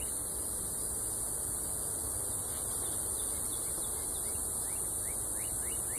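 Steady high-pitched hiss of outdoor background, with a few faint short chirps near the start and again about five seconds in.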